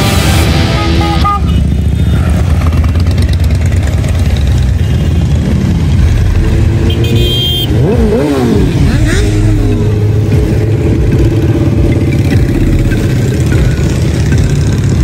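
Motorcycles riding past one after another, their engines running steadily, with one engine revving up and down about eight seconds in. Background music cuts off about a second in.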